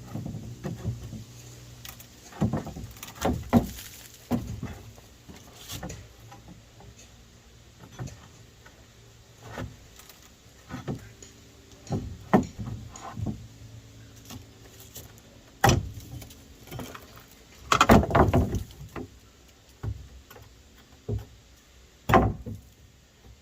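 Irregular knocks, thuds and sharp bangs of tools on old wooden deck boards as they are worked loose and pulled up, the loudest cluster about 18 seconds in.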